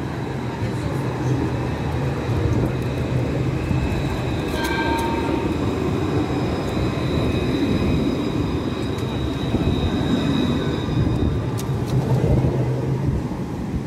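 Tram running on its rails: a steady low rumble, with a thin high whine that comes in about four seconds in and fades near the end.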